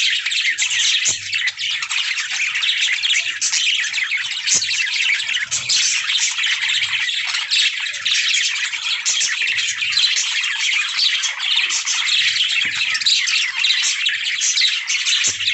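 A group of budgerigars chirping and warbling in dense, unbroken chatter.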